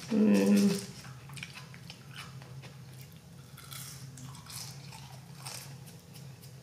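A short closed-mouth hummed "mm" in the first second, then close-up chewing of french fries: soft, wet mouth clicks and bites scattered through the rest.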